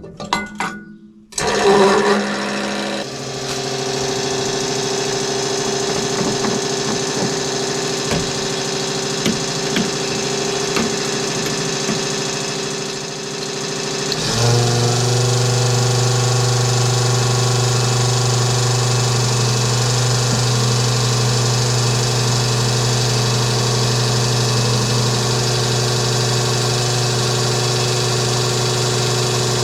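An engine starts and runs steadily, then about halfway through steps up to a louder, faster steady run.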